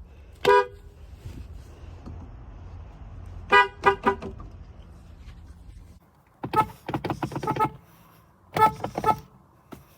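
Car horn tooted in short beeps: a two-tone horn gives one toot, then three quick toots over a low rumble. About six seconds in the rumble stops, and a horn gives a rapid run of about eight quick taps followed by three more toots.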